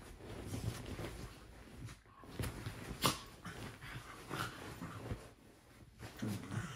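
Jack Russell terrier rolling and squirming on a duvet: irregular rustling of the bedding mixed with the dog's own short snuffly whines and grunts, loudest about three seconds in.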